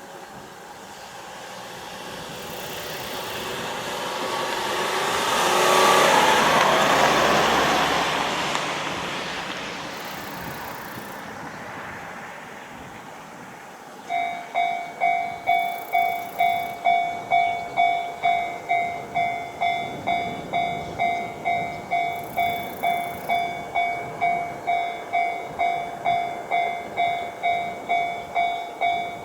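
A vehicle passes, swelling to its loudest about six seconds in and then fading. About halfway through, a Japanese railway level-crossing alarm starts, its electronic bell clanging about twice a second to warn that a train is coming.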